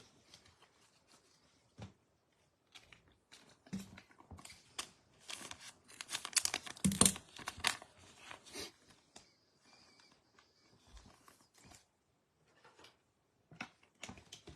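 Trading cards and their plastic packaging being handled: crinkling and rustling with light taps, busiest about five to eight seconds in.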